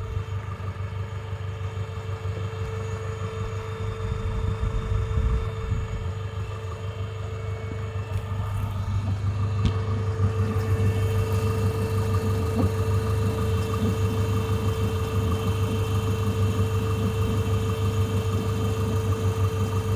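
Renault Mégane II's F4RT 2.0 turbo four-cylinder petrol engine running steadily, with an even tone over the engine hum that drops out early on and comes back about halfway through, a little louder from then on. This is the strange noise the owner is asking about.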